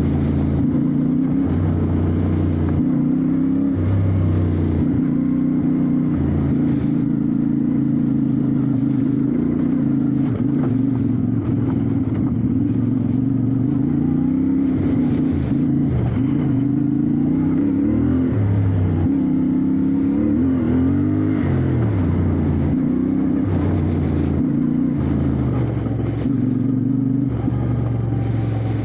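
Motorcycle engine running under way, mostly at a steady pitch, with the revs dipping and rising several times past the middle as the throttle is worked.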